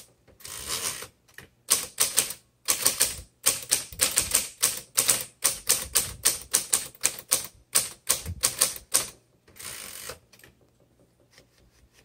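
Smith-Corona Coronet Automatic 12 electric typewriter typing a line: keys strike in quick runs over the steady hum of its motor. There is a brief whir from the powered carriage return near the start and again about ten seconds in, after which only the motor hum is left.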